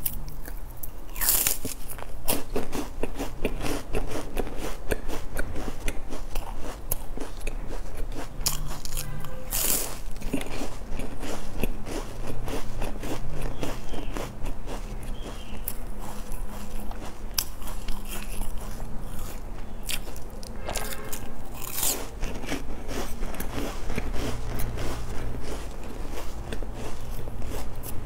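Close-miked biting and crunchy chewing of a sesame-topped chocolate bar, with dense crackling chews throughout and loud sharp bites about a second in, near ten seconds and around twenty-two seconds.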